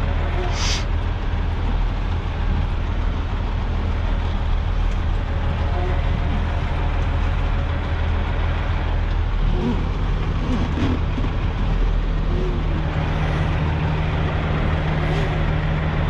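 Dump truck's diesel engine running steadily at low speed during slow maneuvering, with a brief hiss near the start. About nine seconds in, a steady higher hum joins the engine note.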